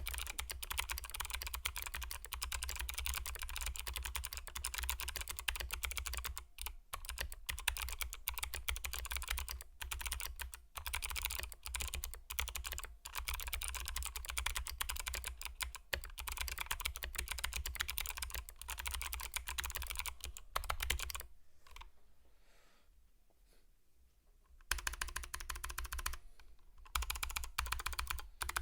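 Fast, continuous typing on a Drop CTRL High Profile mechanical keyboard with unlubed NovelKey Sherbet tactile switches, stock PBT keycaps and an integrated aluminium plate: a rapid stream of key clacks. The typing stops for about three seconds roughly three quarters of the way through, then resumes with one more brief pause near the end.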